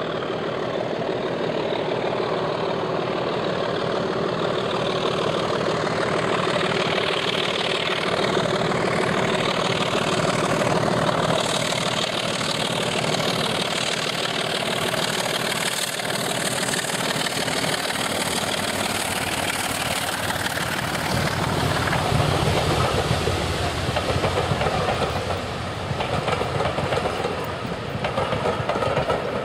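BR Class 24 diesel locomotive D5061, with its Sulzer six-cylinder engine, working as it hauls a passenger train past, growing louder as it draws near. Near the end come the coaches' wheels clattering over the rail joints.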